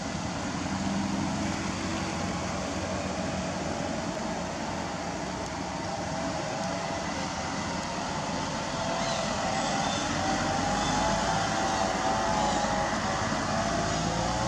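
Steady road-traffic noise, with a motor vehicle's engine running and its pitch wavering from about six seconds in.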